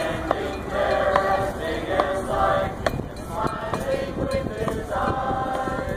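A group of people singing a mournful song together, in held, drawn-out notes, with a few sharp clicks over it.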